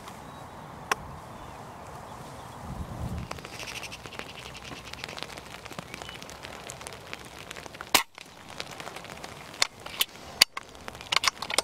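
Single shot from a .22 Theoben MFR pre-charged air rifle about eight seconds in, the loudest sound here, followed by a few sharp clicks and taps near the end. A faint steady hiss of drizzle runs underneath.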